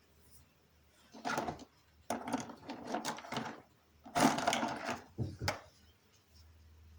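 Objects being handled: several short bursts of rustling and clattering, the loudest a little over four seconds in.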